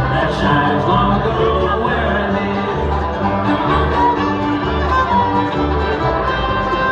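Bluegrass band playing, a fiddle carrying the lead over a steady bass beat.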